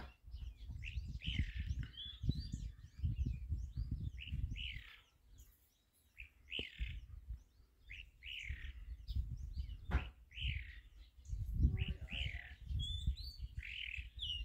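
Chalk-browed mockingbird (sabiá-do-campo) singing: a string of short, varied chirping phrases, about one a second, with a brief lull near the middle and a low rumble underneath.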